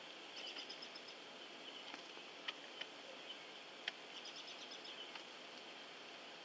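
Faint steady hiss with a bird chirping in two short runs of rapid high notes, about half a second in and again past four seconds, and two sharp clicks in between.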